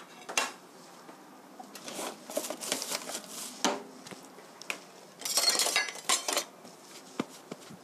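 Dishes and metal kitchen utensils clinking and clattering on a table: a plate set down at the start, scattered knocks, then a longer, louder rattle of cutlery a little past halfway.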